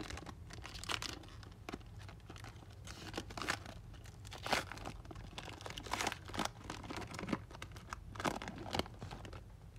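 A basketball card pack's wrapper being torn open and crinkled, with irregular sharp crackles all through.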